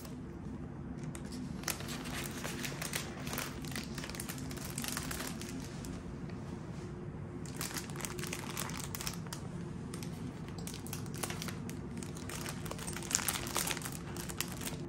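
Thin crinkly material, paper or plastic, being handled and crumpled in three spells of short crackling bursts, the loudest near the end, over a steady low hum.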